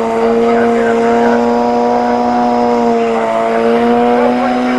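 Suzuki GSX-R sport bike's inline-four engine held at steady high revs during a burnout, its rear tyre spinning on the tarmac.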